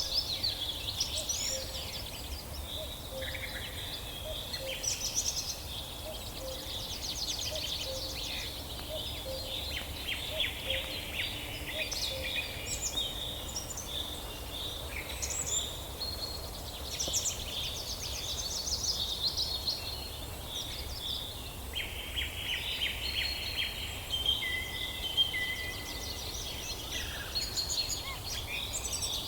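Several birds chirping and singing at once, with many short, high chirps and trills overlapping throughout, over a steady low outdoor rumble.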